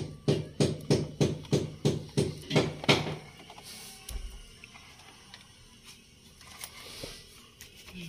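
Background music with a steady drum beat, about three beats a second, stopping about three seconds in; after that only faint scattered clicks.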